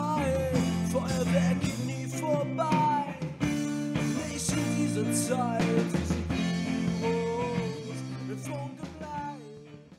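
Background music: steady sustained chords with a sliding lead melody above them, fading out over the last second or two.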